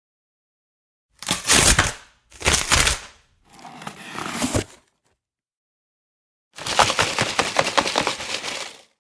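A run of separate editing-app sound effects with dead silence between them: three short crunching, breaking noises of about a second each, then a longer crackling one of about two seconds made of many quick clicks.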